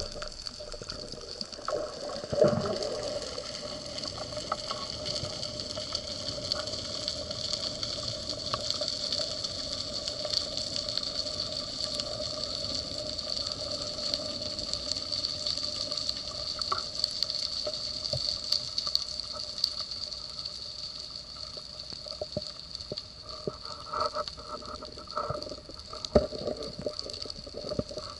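Underwater water noise as a diving camera picks it up: a steady rush of moving water with scattered faint clicks and crackles.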